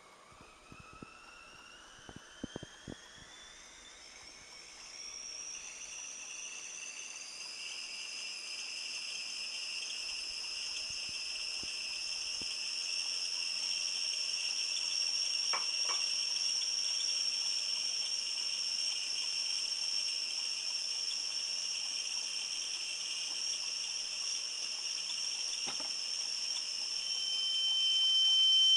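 A high electronic whine of sound design, made of two thin tones that glide upward over the first few seconds, then hold steady and slowly swell louder. A few faint clicks come about two to three seconds in, and a piercing pure tone cuts in near the end.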